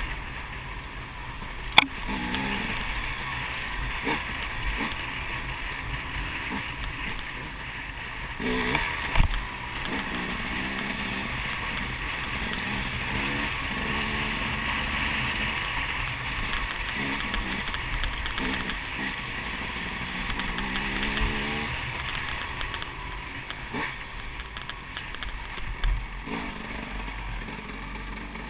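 Dirt bike engine revving up and down as the bike rides a rough trail, with wind noise on the microphone. A few sharp knocks cut through, the loudest about two seconds in and another about nine seconds in.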